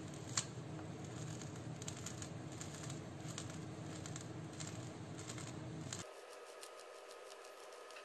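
Quiet room tone: a faint steady hum with a few soft clicks. The low hum cuts off abruptly about six seconds in, leaving fainter hiss.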